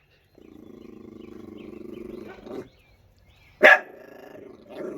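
A dog growling steadily for about two seconds, then one sharp, loud bark about three and a half seconds in, followed by more growling: a dog guarding its raw fish from another dog that is trying to take it.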